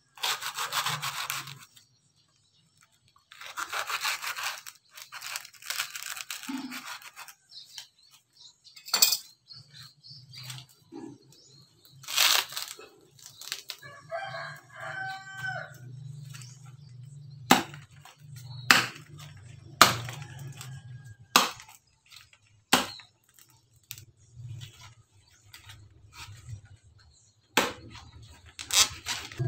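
Coconut husk being stripped from a sprouted coconut with a machete-style knife: rough tearing and scraping of the fibre, then a string of single sharp knocks as the blade is driven in and pried against the husk.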